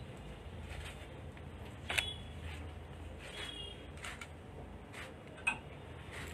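A few scattered camera shutter clicks during a photo session, the sharpest about two seconds in and again near the end, over a low steady room hum.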